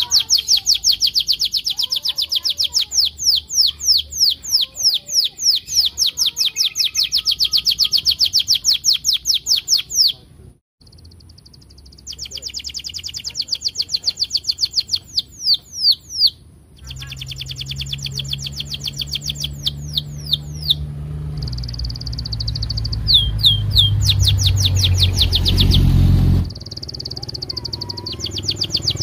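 Domestic canary singing long, fast trills of repeated high, downward-sliding 'cuit cuit' notes, about four a second, in several phrases broken by brief pauses. A low rumble rises underneath in the second half.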